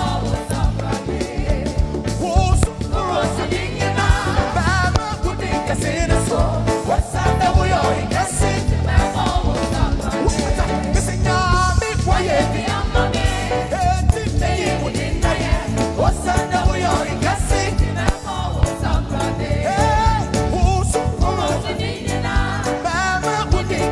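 Gospel band music with a steady beat and heavy bass, with singing over it at times.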